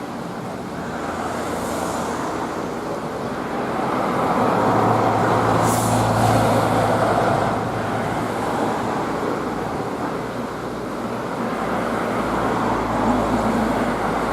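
Steady outdoor rushing noise, with a vehicle's engine hum swelling and fading as it passes through the middle.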